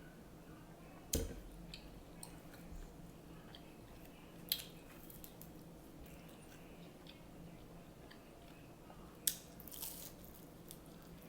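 Eating an egg roll: three sharp crunches as it is bitten, about a second in, around four and a half seconds in and near the end, with softer chewing ticks between.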